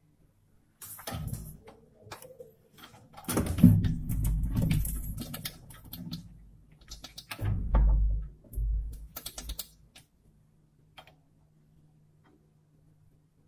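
Metal lathe being worked: an irregular clatter of metallic clicks and knocks with a few heavy thumps, over a low steady hum that returns once the clatter stops.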